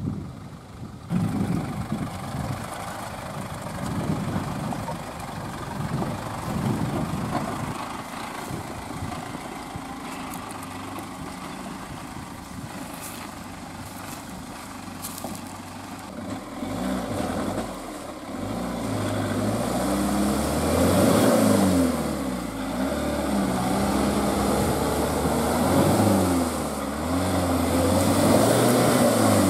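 GAZ Sobol 4x4 van's engine labouring through deep mud ruts. About halfway through it gets louder, and the revs rise and fall again and again as the wheels claw for grip.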